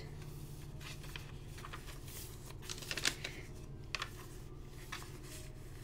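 Pages of a handmade journal being turned and handled: soft, scattered rustles and ticks of thick coffee-dyed paper, over a steady low hum.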